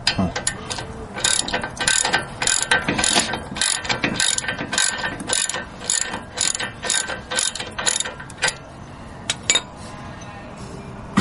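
Ratchet wrench with an 18mm socket clicking in quick repeated strokes, about three a second, as the bottom brake assembly bolt is worked loose. The strokes stop after about eight and a half seconds, with a couple more a second later and a sharp click at the very end.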